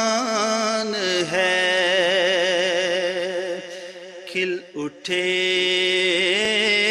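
A man singing an Urdu naat (devotional kalam) solo, holding long notes with a wavering pitch, with a short break about four and a half seconds in.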